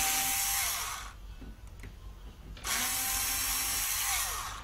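Small electric screwdriver from a children's science kit running in two bursts, unscrewing the old door knob lock: the first run ends about a second in, the second runs for nearly two seconds from just under three seconds in. The motor winds down at the end of each run.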